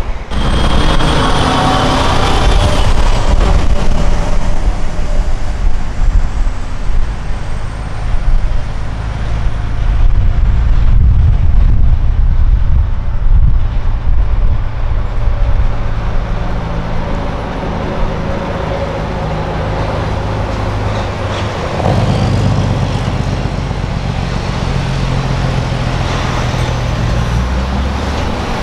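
Diesel engine of a long-hood semi truck with tall straight stacks, pulling a loaded flatbed trailer past at low speed: a loud, steady, deep engine drone. About three-quarters of the way through, the engine note changes as the truck pulls away.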